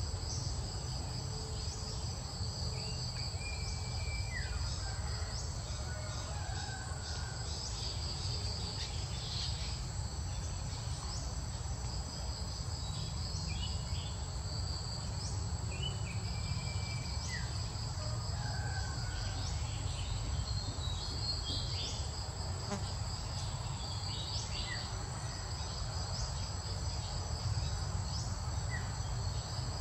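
Steady outdoor chorus of crickets and other insects, a continuous shrill high buzz, over a low rumble. A few short high chirps come and go.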